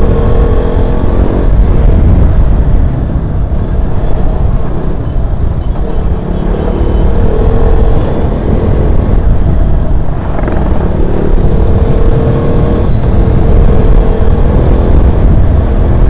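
KTM RC 200's single-cylinder engine running at road speed, its note rising and falling with the throttle several times, under a heavy low rush of wind on the microphone.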